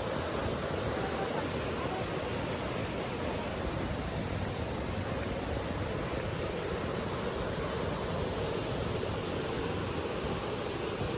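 Steady, even rushing noise of water, unbroken throughout.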